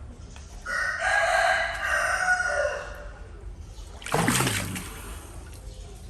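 Rooster crowing: one long call of about two seconds. Then, about four seconds in, a short harsh sound drops quickly in pitch.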